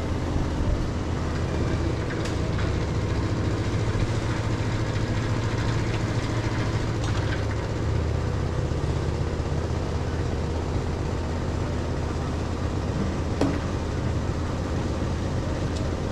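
Engine of construction-site machinery running steadily through a concrete pour, a constant low drone. A few light knocks from the work sound over it, the clearest about 13 seconds in.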